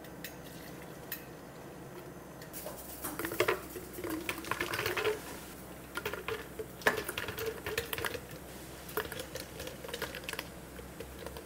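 Milk poured into a plastic bottle, the pour climbing slightly in pitch as the bottle fills. Then ice cubes scooped with a metal scoop and tipped into the bottle, clattering in quick bursts against the plastic.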